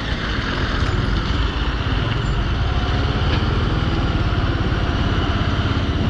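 Motor vehicle engines running with a steady, fast-pulsing low rumble as a loaded tipper truck pulls away ahead.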